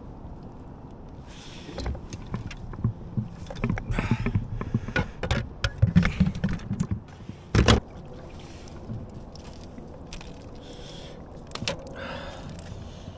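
Irregular knocks, bumps and scrapes in a kayak as a freshly landed bass is handled aboard, with one sharp knock a little past halfway, then a quieter steady stretch.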